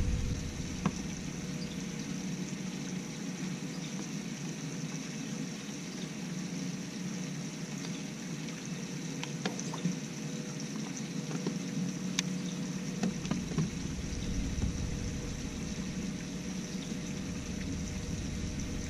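Bow-mounted electric trolling motor running with a steady hum, with water sounds around the jon boat's hull. A few light clicks, and a low rumble comes back in about two-thirds of the way through.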